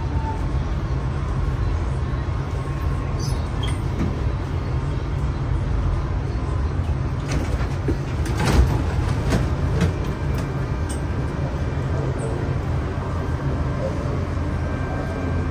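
Subway station noise: a steady low rumble, with a few sharp clacks about seven to ten seconds in, the loudest near eight and a half seconds, and a faint steady whine over the last few seconds.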